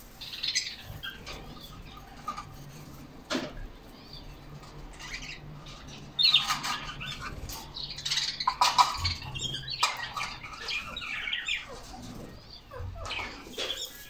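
Caged canaries fluttering and flapping their wings in irregular bursts, busiest in the second half, with short chirps and a couple of sharp clicks.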